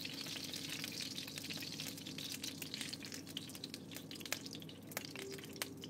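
Hot frying oil in a pan faintly sizzling, with many small scattered pops and crackles.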